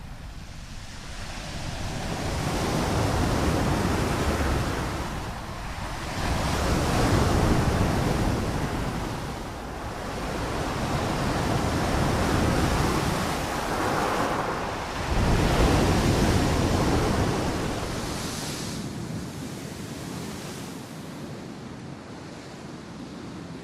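Ocean waves breaking and washing in, in slow surges of rushing water a few seconds apart, about five of them, easing off near the end.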